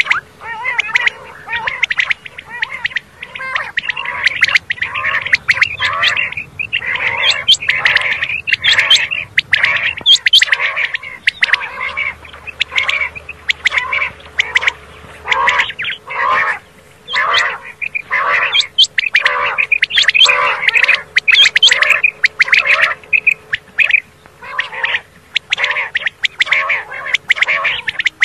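Common quail calling: short call notes repeated in quick succession, several a second, with only brief gaps.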